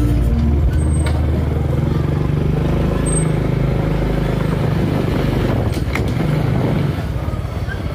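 Honda Biz step-through motorcycle's small single-cylinder four-stroke engine running steadily as it rides along.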